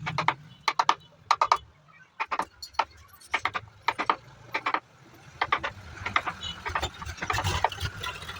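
A run of sharp, irregular knocks or taps, a few a second, over a low hum that grows a little louder in the second half, typical of hand work on wood in a carpentry shop.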